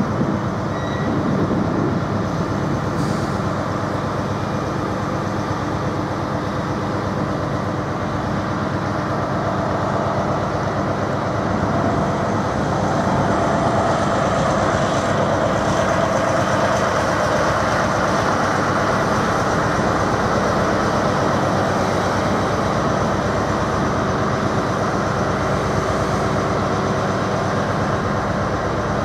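Diesel trains running in a station: a steady engine drone with many even tones, from a Class 43 HST power car standing at the platform and a Class 165/166 Networker Turbo diesel unit moving along the platform. The noise grows a little louder about twelve seconds in.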